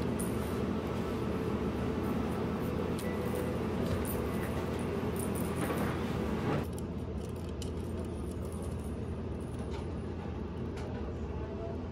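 Steady low room hum with light scattered clicks and jingles. The hum drops abruptly a little past halfway.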